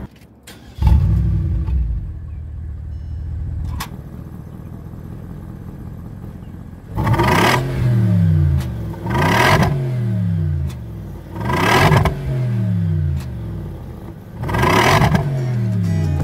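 Bentley Continental's twin-turbo V8 exhaust idling, then revved four times in the second half. Each blip rises quickly and the revs fall back to idle.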